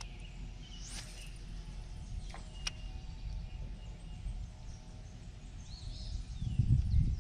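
Outdoor ambience on a lake: a steady low rumble with a few scattered bird chirps. A louder low rumble swells briefly near the end.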